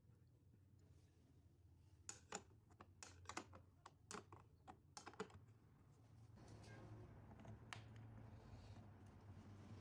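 Faint, light clicks and taps, about a dozen in quick irregular succession, then a soft steady noise that sets in about six seconds in.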